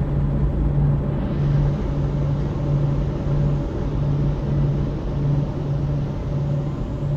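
Steady low rumble heard from inside a car in a car wash, with a low hum that pulses on and off about one and a half times a second.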